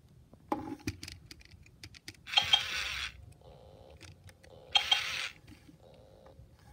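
A Hasbro i-Dog robot toy with its face cover off: plastic clicks from handling, then two short, hissy electronic sounds from its small speaker, each under a second, while its LED board lights up in response to a touch on the head.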